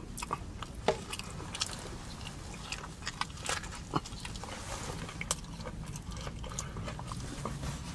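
Close-miked eating of a sushi burrito: a bite, then chewing and lip smacking with irregular wet mouth clicks, over a steady low hum.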